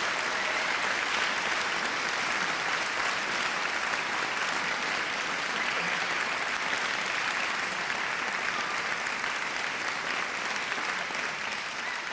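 Large crowd applauding: steady, dense clapping from many hands.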